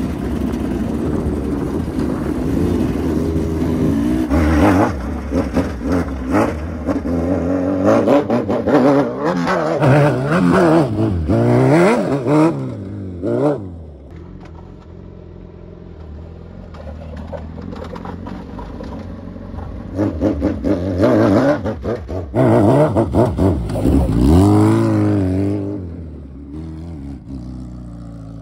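Suzuki Hayabusa's inline-four engine revving up and down in repeated bursts as the heavy sportbike works its way up steep slickrock. There are two loud spells of revving, with a quieter, steadier stretch between them and a drop in level near the end.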